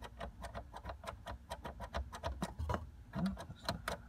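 Rapid, even ticking, about six to seven ticks a second, in the cab of a Ford OBS truck with the ignition switched on, with a brief low sound about three seconds in.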